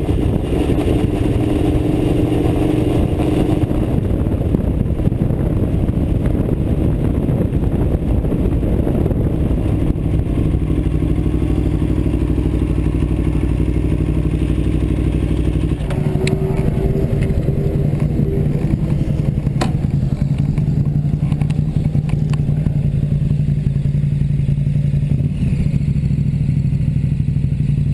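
Aprilia Tuono V4 motorcycle's V4 engine running steadily at low revs as the bike rolls slowly, recorded from a handlebar camera. The engine note shifts to a new pitch partway through, and a couple of sharp clicks stand out.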